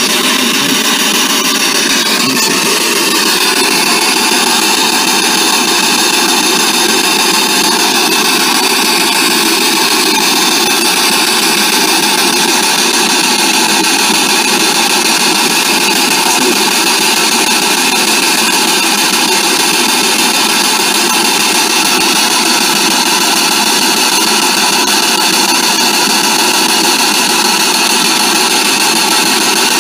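Spirit box sweeping the AM radio band, playing loud, steady hissing static through an external ITC speaker.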